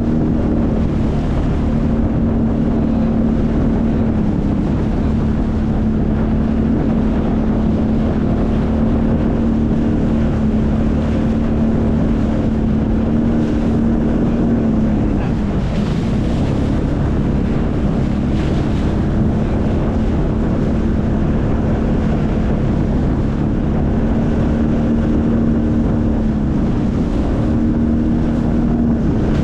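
Sea-Doo personal watercraft engine running at steady throttle, with wind buffeting the microphone and water rushing. About halfway through the engine note dips and wavers for a moment, then settles back to the same steady pitch.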